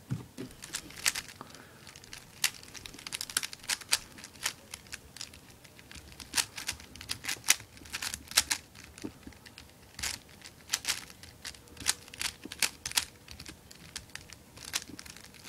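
Dayan non-ridged Megaminx puzzle being turned fast by hand: irregular plastic clicks and clacks of its faces snapping round, several a second.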